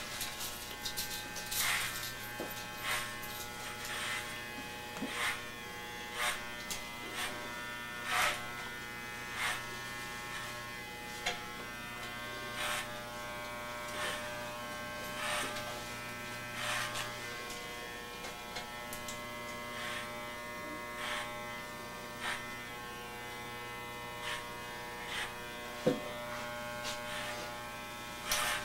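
Corded electric hair clippers running with a steady buzz as they cut through the long hair on top of the head, with short sharper sounds about once a second.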